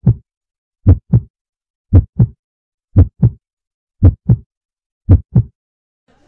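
Heartbeat sound effect: six deep double beats, lub-dub, about one a second, with dead silence between them, a suspense cue for nervousness.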